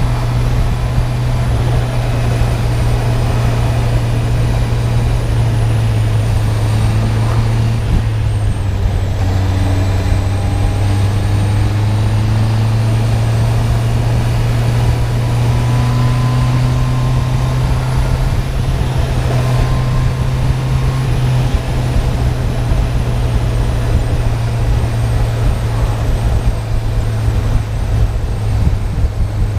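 Honda CB650R's inline-four engine running at steady revs through its stock exhaust.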